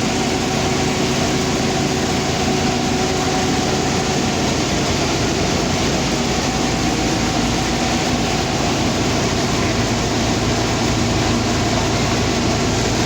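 Heavy machinery running steadily: a loud, even drone with several steady hum tones through it.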